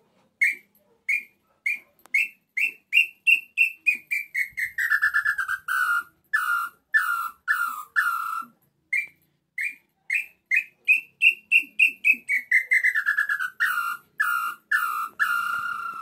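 Hand-blown wooden tinamou call (pio) imitating the small-billed tinamou (inhambu-chintã, 'nambu pé-roxo'). It plays two phrases of whistled notes. Each phrase starts slow and speeds up, then falls in pitch as the notes grow longer and harsher, and the second phrase ends on a longer held note.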